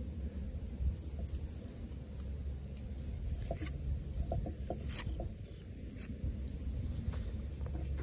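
A steady high-pitched trill of insects, with a few short scrapes of a knife blade on wood.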